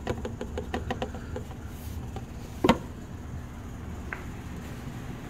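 Handling noises: a quick run of light clicks and taps in the first second and a half, then one louder knock about two and a half seconds in, over a steady low background hum.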